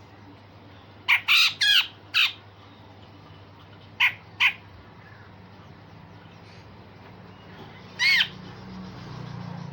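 Grey-cheeked bulbul (cucak jenggot) giving harsh, rasping calls: a quick run of four about a second in, two short calls around four seconds, and one more near eight seconds.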